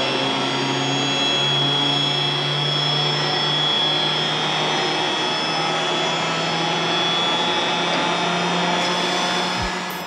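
Rotary screw air compressor running: a steady low hum under a broad hiss, with a faint high whine. It fades near the end.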